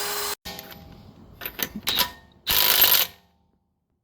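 A few clicks and knocks of tools being handled, then a single loud half-second burst from a power tool.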